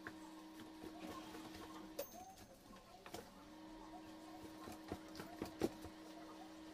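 Thick amala dough being stirred and pressed in a metal pot with a wooden spoon: soft sticky squelches and light knocks of the spoon against the pot, the loudest few about two-thirds of the way in, over a steady low hum.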